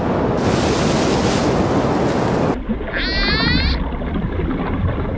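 Steady rushing water and surf noise. About three seconds in, an orca (killer whale) gives one short rising call with many stacked tones.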